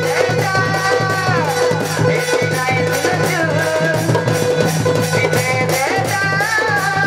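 Sambalpuri folk music played live: a dhol drum beating a steady rhythm under a sustained melody that glides up and down over a held drone.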